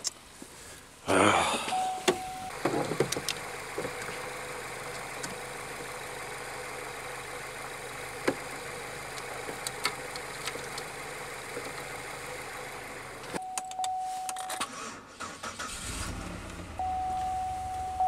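A 2001 Pontiac Aztek GT's 3.4-litre V6 is cranked and catches about a second in, then runs steadily. It is running rough with a misfire, which the owner suspects comes from a bad ignition coil. A steady electronic warning chime sounds briefly after the start, and again near the end.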